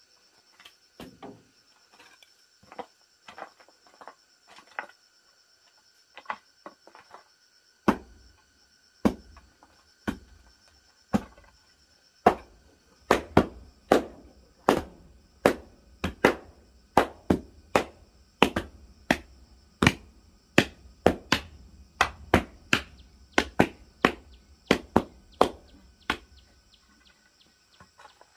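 Wooden blocks knocking down a loose earth floor to compact it: sharp knocks, sparse and light at first, then louder and regular at about one and a half a second from about a third of the way in. Steady high-pitched insect buzzing goes on underneath.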